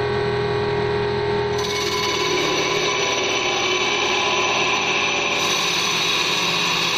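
CNC wood lathe turning a wooden vase-base blank, a steady machine whine with the cutting tool shaving the spinning wood. The hiss of cutting comes in about a second and a half in and is strongest near the end, as chips spray off the workpiece.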